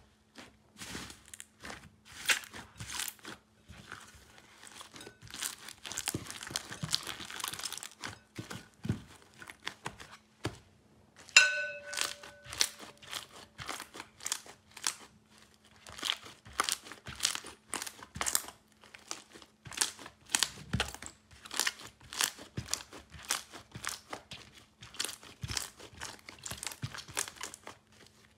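Soft slime squeezed and kneaded by hands, giving a dense run of sticky clicks and small air-bubble pops. About eleven seconds in comes a louder pop followed by a short squeaky tone.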